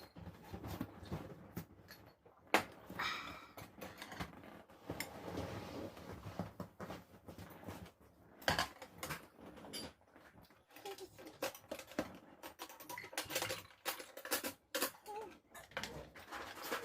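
Dishes and utensils being handled at a table: irregular clicks, knocks and clatter, with two louder knocks about two and a half seconds and eight and a half seconds in.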